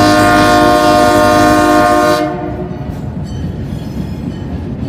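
A train's multi-tone air horn sounds one loud, steady chord that cuts off a little after two seconds in. The train rumbles on at low speed, with faint high squeals coming and going.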